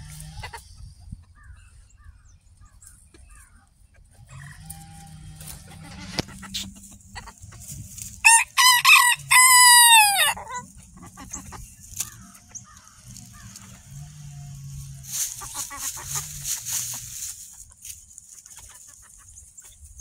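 A Mille Fleur mix rooster crows once, about eight seconds in. The crow is loud, comes in two parts and lasts about two seconds, and its pitch falls away at the end.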